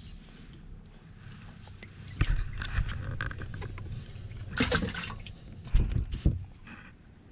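Knocks, bumps and rustling of handling in a fishing boat as a freshly landed bass is dealt with. The loudest knocks come about two, four and a half and six seconds in.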